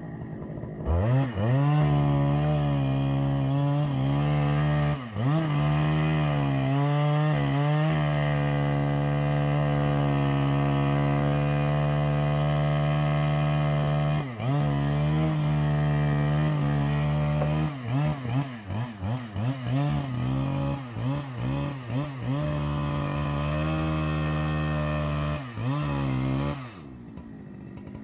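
Husqvarna two-stroke chainsaw starting up about a second in and revving up and down in quick blips. It then runs at high speed for several seconds, blips rapidly again, and drops back to a lower idle near the end.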